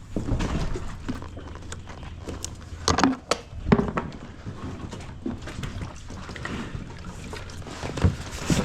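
Water noise around a kayak, with a few sharp knocks on the hull or gear about three seconds in and again near the end.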